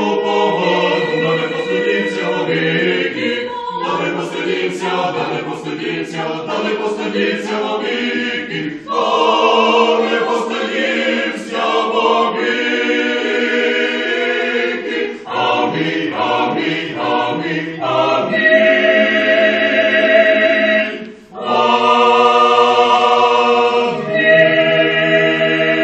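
Mixed choir of men's and women's voices singing Orthodox church chant unaccompanied, in phrases of sustained chords, with a brief break about three quarters through and long held chords after it.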